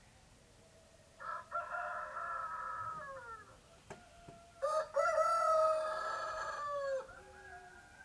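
Roosters crowing: one crow starts about a second in, and a second, louder crow about halfway through; each ends on a falling note. A fainter crow follows near the end.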